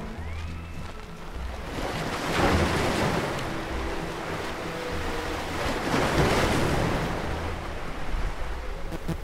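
Ocean surf: waves washing in, swelling twice, about two and a half and six seconds in, with soft sustained music notes underneath.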